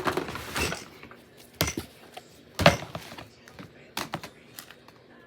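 Fidget toys and small plastic tubs being tossed into a storage box: several separate knocks and clatters, the loudest about two and a half seconds in.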